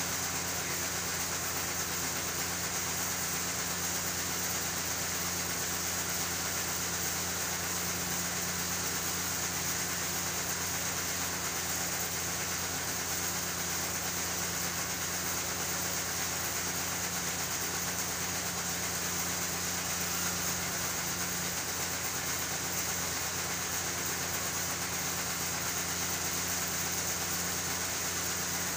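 Steady mechanical hum with a constant hiss, unchanging throughout.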